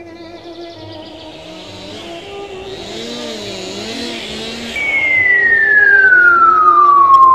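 Cartoon sound effects over soft string music. A chainsaw buzz builds up over the first few seconds. Then comes a loud, long whistle falling steadily in pitch as the cut tree topples, cutting off near the end.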